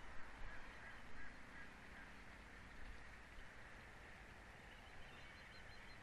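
Faint outdoor ambience with a distant, low honk sounding for a couple of seconds early on.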